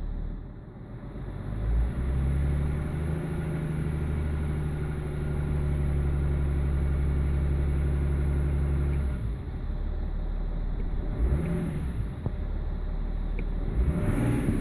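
BMW E46 330d's M57 inline-six turbodiesel running, held at a steady speed for several seconds before the engine note drops about nine seconds in, then running unevenly with a couple of short rises in revs. The roughness is a lumpy idle that the owner traces to a faulty number 6 injector.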